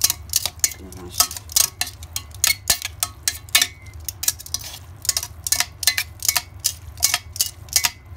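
Kitchen tongs clacking and scraping against a stainless steel pot as cooked spaghetti is tossed, about two to three sharp clacks a second, over a steady low hum.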